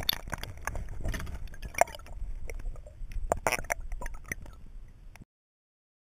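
Lake water sloshing and splashing around a camera dipped just under the surface, with many irregular knocks and clicks from handling. The sound cuts off abruptly about five seconds in.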